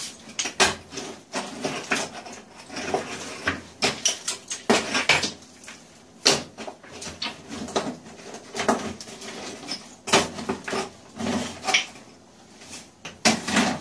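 Irregular clinks and knocks of loose rock and rubble being handled and shifted around a freshly blasted spot in hard quartz rock.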